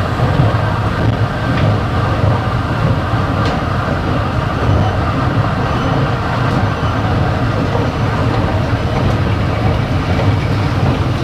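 Singapore MRT train running at speed, heard from inside the carriage: a steady low rumble of wheels and motors, with a few faint clicks from the rails.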